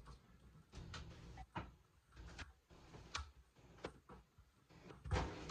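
Faint, scattered light knocks and clicks from handling the stopped floor machine and its cord, with a louder cluster of knocks near the end.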